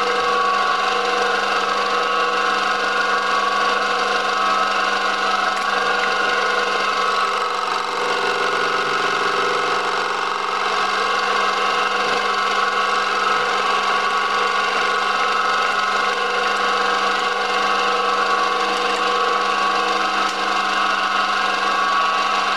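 A small bench milling machine runs steadily with an even motor whine. Its spindle cutter is working the rim of a perspex rosette on a rotary table, cutting a wave pattern.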